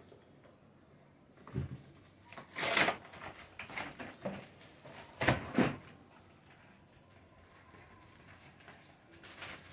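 Clear plastic bag crinkling and cardboard packaging rustling as a keyboard is pulled out of its bag and box, in a few short bursts, the loudest about three and five seconds in.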